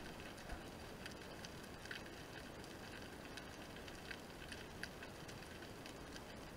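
Faint underwater ambience heard through a camera's underwater housing: a steady hiss with scattered sharp clicks and crackles, a few each second.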